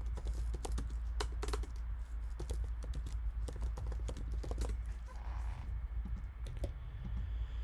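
Rapid, irregular light clicks and taps over a steady low hum.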